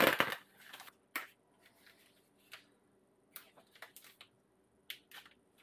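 Knife slitting and tearing open the plastic bag around a whole raw chicken: a sharp rip right at the start, then scattered short crinkles and rustles of the plastic film as it is pulled off.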